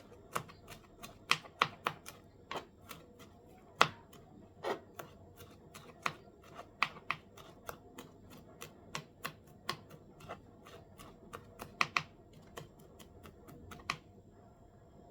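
Knife chopping on a cutting board: a run of short, sharp, irregular taps, about two to four a second, that stops near the end.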